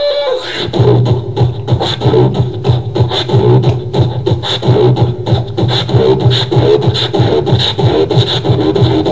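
Beatboxing: a fast, steady rhythm of percussive hits and clicks, about four a second, over a continuous low bass tone.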